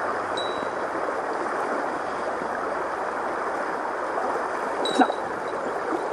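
Mountain stream water rushing and gurgling steadily. A short high peep sounds just after the start, and another about five seconds in, where a sharp click is the loudest moment.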